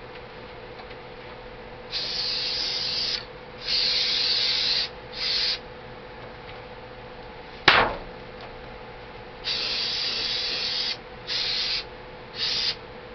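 Aerosol paint stripper sprayed in short hissing bursts: three in the first half and three in the second, each cut off sharply. A single sharp knock comes about halfway through and is the loudest sound.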